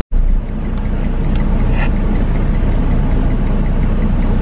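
Steady low rumble of a semi-truck's diesel engine heard from inside the cab, idling in stopped traffic, with a brief break at the very start.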